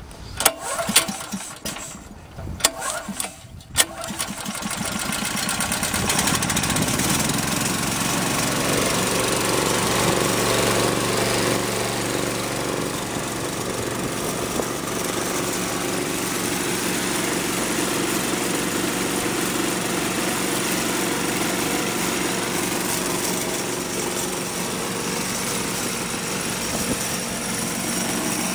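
Belaire gas air compressor's 13 HP Honda single-cylinder engine (GX390) being pull-started. A few sharp pulls on the recoil starter come first, and the engine catches about four seconds in. It picks up speed and then runs steadily, driving the compressor pump.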